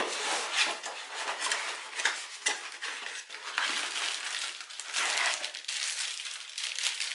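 Cardboard packaging being handled: a small box's flaps opened and rustling and scraping, with many small irregular knocks and clicks as the plastic part inside is lifted out.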